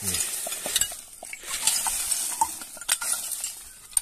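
A wooden stick prodding and raking through a pit of dry rubbish: a rustling and scraping of plastic, paper and dry leaves, with scattered sharp clicks.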